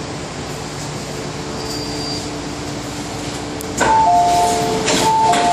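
MTR M-Train door-closing warning chime: a two-tone chime starts about four seconds in and repeats as the doors slide shut, with a few clunks from the door gear. Before it, the standing train's steady hum of ventilation and equipment.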